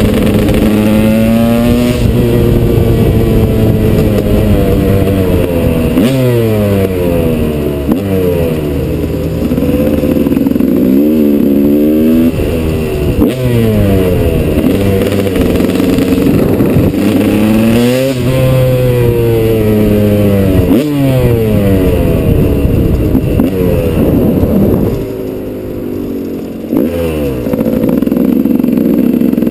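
KTM 200 EXC single-cylinder two-stroke engine on a supermoto, heard from onboard, pulling through the gears: its note climbs again and again and drops at each shift. A short quieter stretch comes near the end.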